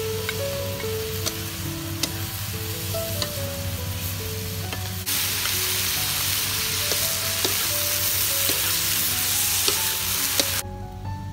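Chicken hearts and luffa sizzling in a wok while a wooden spatula stirs them, with small clicks of the spatula against the pan. The sizzle jumps louder about five seconds in and drops back shortly before the end, over light background music.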